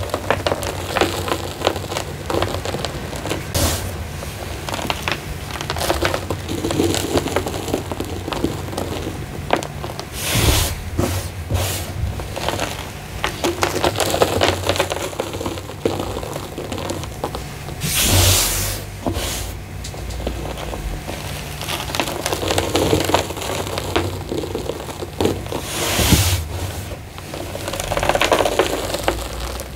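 Gym chalk mixed with fine sand being crumbled by hand into loose powder: continuous crackly crunching and scraping. Every seven or eight seconds a louder hiss comes as a handful of powder is dropped.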